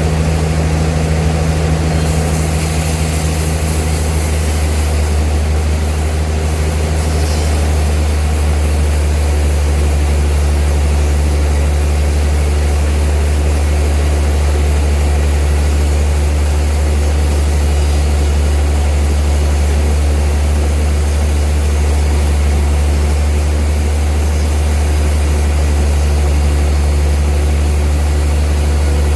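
Old sawmill machinery running steadily, a loud, deep, even hum that does not change.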